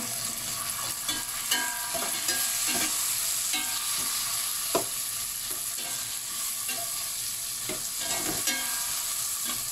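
Prawns and vegetables sizzling in oil in a pan while being stirred and sautéed, with the stirring utensil knocking and scraping against the pan now and then.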